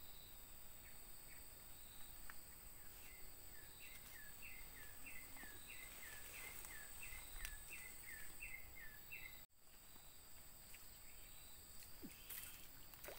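Faint outdoor ambience: a bird calls a short repeated two-note chirp, about two a second for several seconds in the middle, over a steady high-pitched insect drone.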